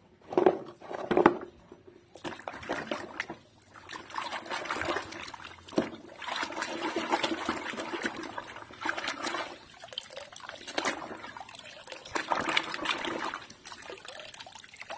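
Small toy cars clattering together as a hand picks through them, then splashing and sloshing in a basin of foamy soapy water as a toy car is scrubbed by hand, with water running off it as it is lifted near the end.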